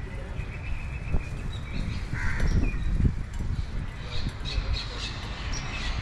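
Birds calling and chirping over a low, uneven rumble of outdoor ambience.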